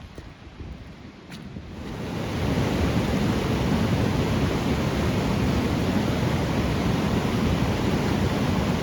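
A fast river rushing at a trail crossing, a steady loud roar of water. It swells in about two seconds in, after a few light clicks.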